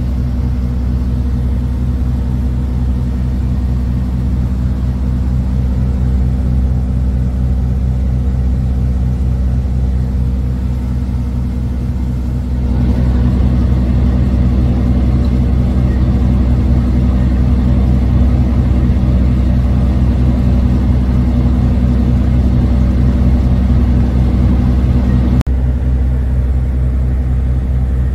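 Ship's engine running steadily: a loud low hum with a fast, even throb. It gets louder and fuller about halfway through, with a brief break near the end.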